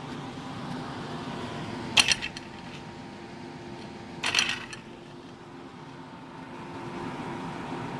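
Vintage Doppelmayr platter lift running: a steady mechanical hum of the moving haul rope and drive, with several faint steady tones. Two short, loud metallic clanks about two and four seconds in, as hanger grips pass over the rope sheaves.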